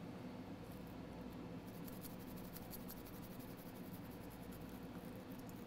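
Semi-soft cleaning brush scrubbing corrosion off a circuit board: faint, fine scratching strokes that grow denser about two seconds in, over a low steady hum.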